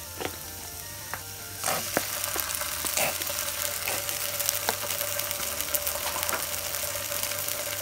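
Daikon and carrot pieces sizzling in olive oil in a hot nonstick frying pan, a steady crackling hiss with scattered pops that grows louder about two seconds in.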